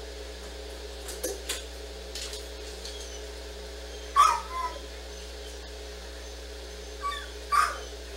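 A dog giving short, sharp barks in pairs: two about a second in, the loudest pair around four seconds in, and two more near the end, over a steady low hum.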